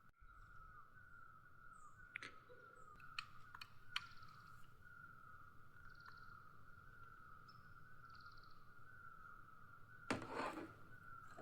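Faint, steady run of short, slightly falling chirps from a calling animal, about two a second without a break. A few light clicks come a few seconds in, and a brief clatter comes near the end.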